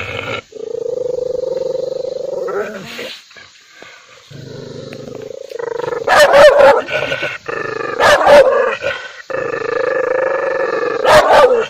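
An angry dog growling in long, steady snarls, breaking into loud barks about six seconds in, again around eight seconds, and near the end. It is an aggressive warning display, teeth bared.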